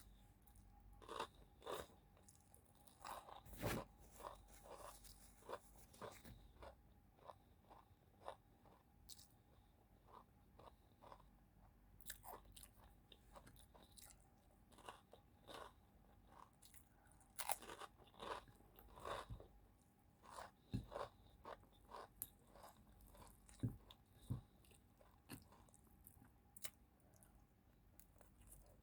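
A person chewing and crunching food close to the microphone: faint, irregular crisp crunches and wet mouth clicks, a few every second.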